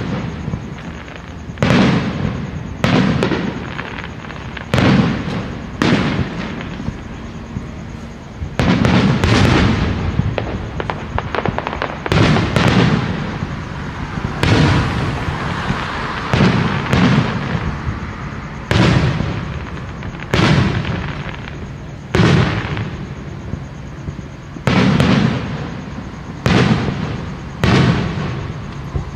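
Aerial fireworks bursting one after another, a sharp boom every second or two, each fading away over about a second. About a third of the way through, the bursts come thicker and overlap.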